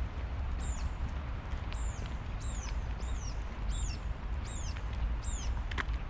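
A small bird calling over and over, a high thin note that slides downward, roughly once a second, over a steady low rumble.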